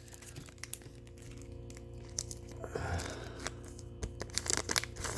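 Foil Pokémon booster-pack wrappers being handled: faint, scattered crinkles and clicks that grow busier near the end, over a low steady hum.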